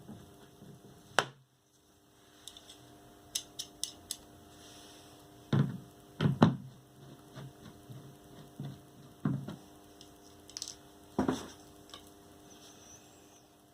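Scattered clicks and knocks of screws and a screwdriver against a washing machine's gearbox and body as the gearbox's fixing screws are put in and started by hand, with about five louder knocks among lighter clicks.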